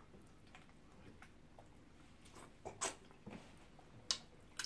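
Close-miked eating sounds: chewing and several sharp wet mouth smacks in the second half as egusi soup with starch is eaten by hand, with fingers being licked.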